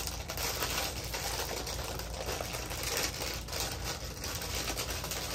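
Crinkling and crackling of a plastic chip bag being handled and pulled at by someone struggling to open it.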